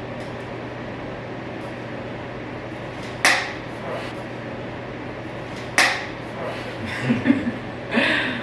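Two sharp smacks about two and a half seconds apart over a steady room hum, followed by brief voice sounds near the end.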